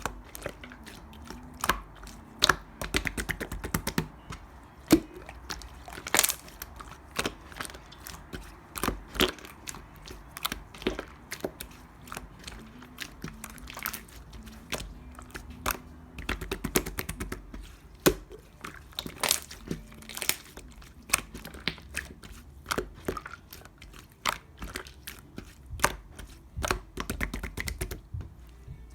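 Hands squishing and poking a thick yogurt-textured slime, making a fast, irregular stream of sticky clicks and small pops.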